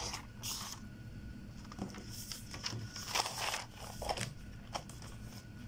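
Paper rustling and crinkling in a few short bursts as a sheet is handled over a spiral notebook, over a faint steady thin background tone.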